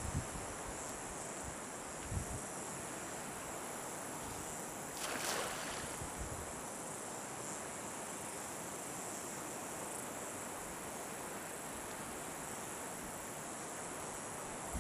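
Steady outdoor chorus of crickets and other insects, a continuous high-pitched trill. About five seconds in, a brief rushing noise lasts about half a second, and a few faint low knocks come near the start and about two seconds in.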